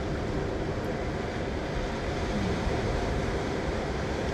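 Steady rushing noise with a heavy low rumble and no distinct events.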